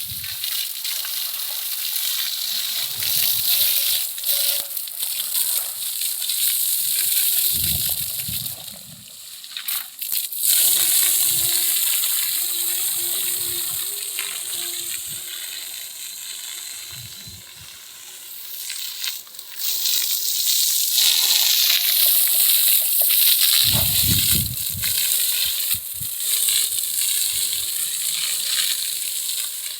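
High-pressure water jet spraying onto the body of a JCB 3DX backhoe loader during a wash: a loud hiss that swells and fades as the spray moves over the machine, with a few dull low thumps.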